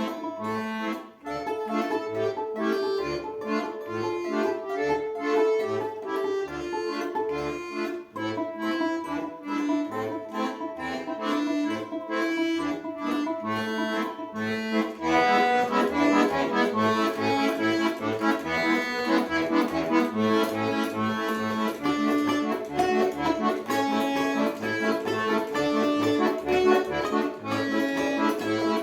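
Accordion playing a tune, with a melody and chords over short, regularly repeated bass notes. The playing becomes fuller and louder about halfway through.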